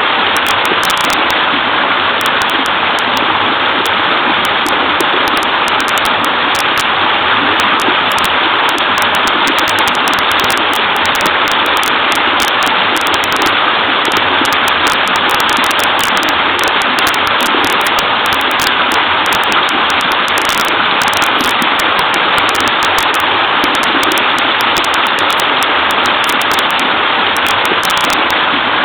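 Small waterfall in a creek: clear water babbling and splashing in a steady, unbroken rush.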